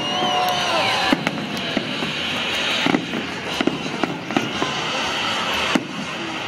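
Celebratory fireworks salute going off: many sharp bangs a fraction of a second apart over a continuous dense crackle, with a whistling tone that slides for about a second at the start.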